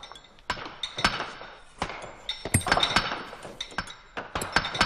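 Hand hammers striking steel drills or chisels in granite: irregular sharp metallic clinks, each ringing briefly, several strikers overlapping. This is the sound of hand-drilling a rock tunnel face.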